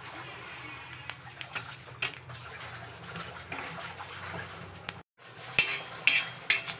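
A metal spoon scraping and tapping on an iron tawa, stirring green chillies and garlic cloves as they dry-roast, over a low steady background noise. After a brief gap about five seconds in, the spoon strikes come louder and more often.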